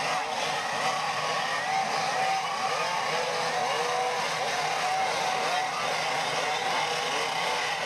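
A pack of two-stroke racing go-kart engines screaming together around a dirt oval. Many overlapping engine notes rise and fall as the karts lift off and accelerate through the corners.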